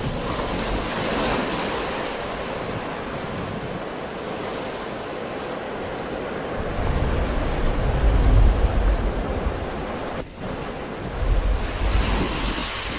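Sea waves washing and breaking on the shore, a continuous rushing hiss, with wind buffeting the microphone in low rumbles during the second half.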